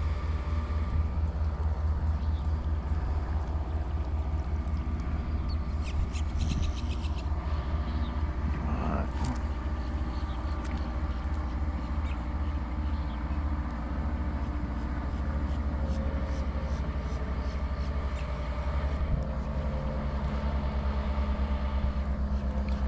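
A steady, low motor drone with a fast, even pulse and a faint hum above it, unchanged throughout.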